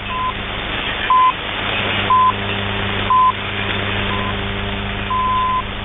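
Radio time-signal pips received on shortwave: five short beeps a second apart, the fifth fainter, then a longer sixth beep. Underneath runs steady receiver hiss with a low hum.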